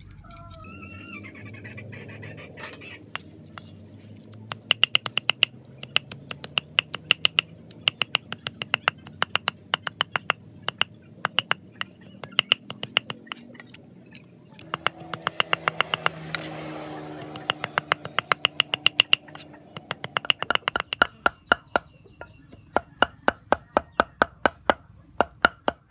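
Steel cleaver chopping red chillies on a wooden chopping board: runs of quick, sharp knocks, several a second, each with a brief metallic ring, broken by short pauses.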